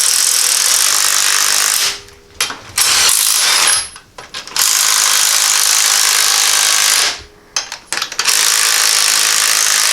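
Power tool, an impact wrench, running the spring compressor's threaded rods to compress a strut's coil spring, in long runs broken by short pauses about two, four and seven seconds in.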